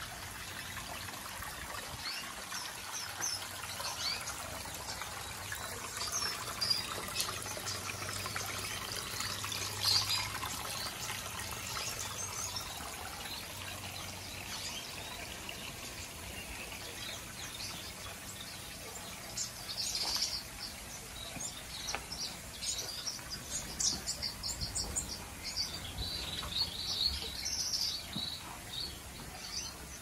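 Small aviary finches chirping, many short high calls overlapping and getting busier about two-thirds of the way in, over the steady trickle of a small rock waterfall into a pond.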